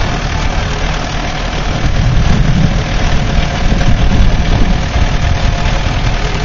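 Tractor engine running steadily with a low, rapid chugging.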